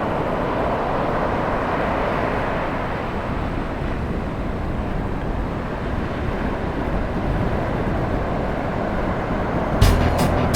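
Steady, even roar of ocean surf breaking on a beach. Music with a beat comes in near the end.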